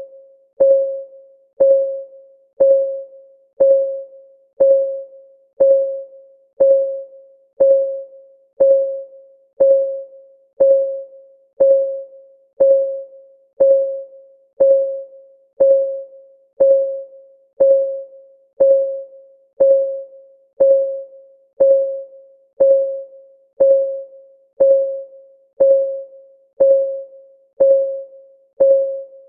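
Timer's clock-ticking sound effect: one short, pitched tick every second, each ringing briefly and fading, in a steady unbroken rhythm.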